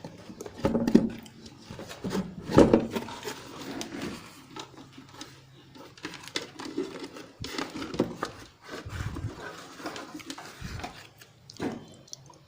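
Handling noise from an opened home theater unit: irregular knocks, clicks and rustling as its casing, circuit board and wires are moved about, with the loudest knocks about a second in and near the three-second mark.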